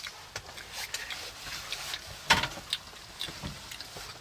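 Quiet handling noises: scattered small clicks and rustles, with one louder knock about two seconds in.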